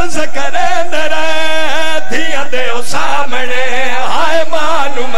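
Men chanting a mournful Punjabi lament (wain) in long, held, wavering notes.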